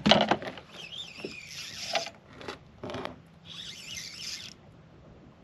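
Spinning reel being wound in short spells while a hooked flathead pulls against the bent rod. A sharp knock comes right at the start.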